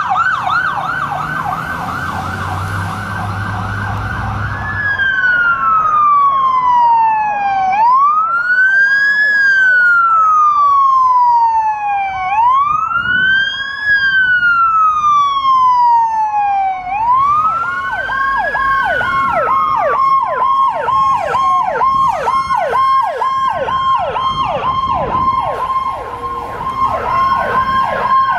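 Fire apparatus sirens on an emergency response: a fast yelp at first, switching about five seconds in to a slow wail that rises quickly and falls over a few seconds, with a steady tone alongside. From about seventeen seconds in a second siren yelps at about two sweeps a second over the slower wail, and a low rumble sits under the first few seconds.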